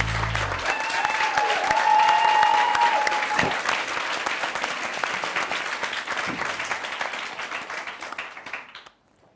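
Audience applauding, with one long high note held above the clapping from about one to three seconds in; the applause fades and stops about a second before the end.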